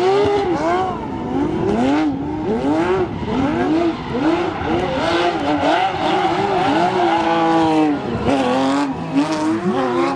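Porsche 911 GT3 race cars' flat-six engines revving up and down in quick surges, about once every two-thirds of a second, while the cars drift, with one longer climb in revs and a drop near the end. Tyre squeal runs under the engine note.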